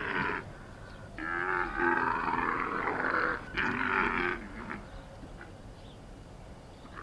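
Dromedary camels calling: a brief call at the start, a long call beginning about a second in, and a shorter one just after it.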